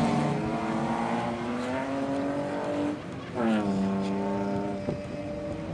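Bilcross race car engines running hard on the circuit. One engine's revs climb slowly, dip just before the middle, then jump up sharply and fall away over about a second and a half as the car lifts off.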